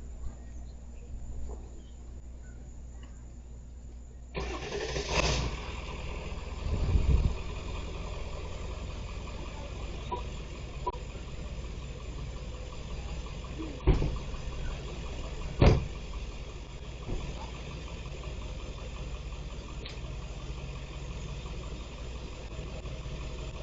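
A vehicle engine idling with a steady low rumble. The sound gets louder and fuller about four seconds in, and several sharp knocks or thuds follow, the loudest about two-thirds of the way through.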